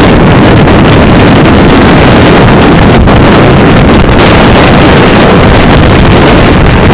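Heavy, steady wind buffeting on a microphone held out of a moving train's window, over the exhaust of the double-headed GWR steam locomotives, Churchward Mogul 5322 and Collett 2-8-0 3850, working hard.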